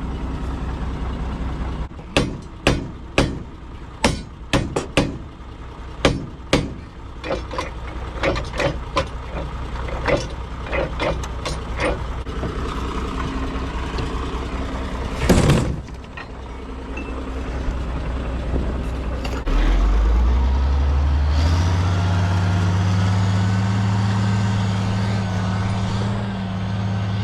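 A run of sharp metal knocks, two or three a second, over the first ten seconds or so. There is a loud short burst about fifteen seconds in. Then a tractor engine revs up and runs steadily.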